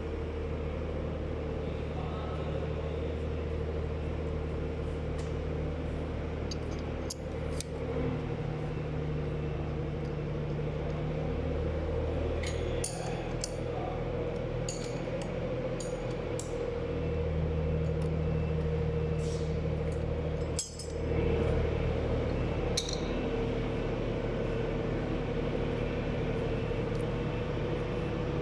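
Machine-shop machine running with a steady hum and low drone, with a few light clinks scattered through, several about halfway and a sharper click about two thirds in.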